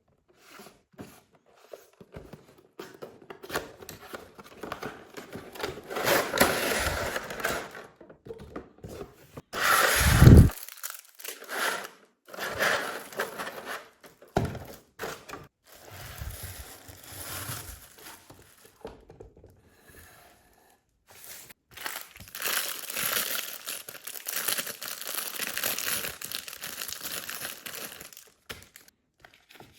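Packaging being handled and unwrapped: plastic wrap and paper crinkling and rustling in irregular stretches, with one heavy thump about ten seconds in.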